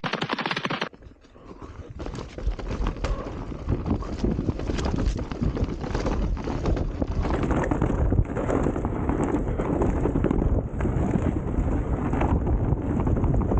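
RAAW Madonna enduro mountain bike ridden down a snowy trail: a steady rattle and knocking of the bike over rough ground, with wind noise on the microphone. Music stops about a second in.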